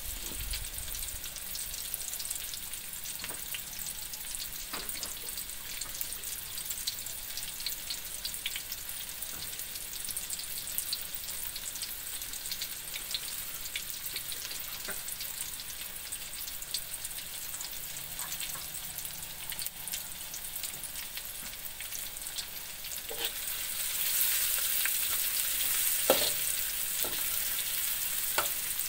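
Chopped shallots, garlic and chilies sizzling and crackling in hot oil in a wok. The sizzle gets louder near the end as the spatula stirs them, with a few scrapes of the spatula against the pan.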